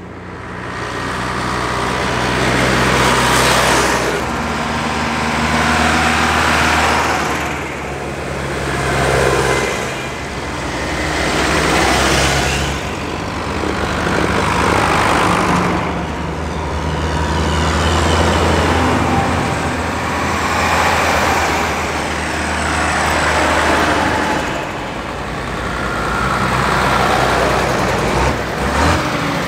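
A procession of Mercedes-Benz MB trac tractors driving past one after another, their diesel engines swelling loud and fading away as each goes by, every few seconds.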